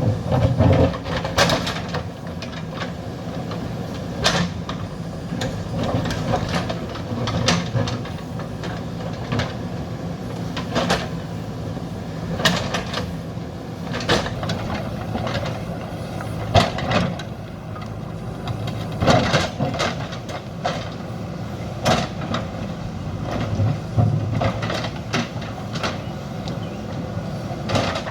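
JCB 3DX backhoe loader's diesel engine running steadily while it digs, with repeated sharp metallic clanks and knocks every second or two from the bucket and arm.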